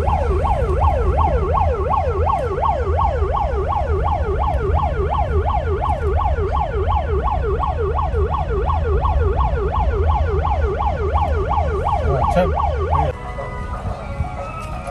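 Electronic siren yelping, its pitch sweeping rapidly up and down about three times a second, over the low rumble of a moving car's cabin. Both cut off together near the end.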